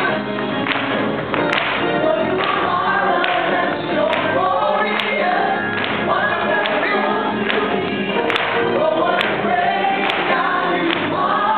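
A gospel praise team of several singers singing a worship song together through the church sound system, with a steady beat about once a second.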